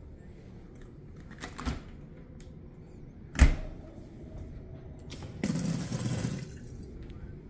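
A single sharp knock about halfway, then a kitchen faucet turned on briefly, with water running into a stainless steel sink for about a second.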